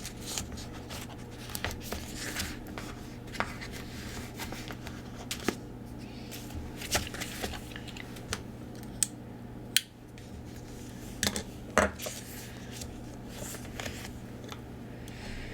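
Scattered small clicks, taps and short scratchy rubs from hands working a decorative roller-tape dispenser against planner paper, over a steady low hum.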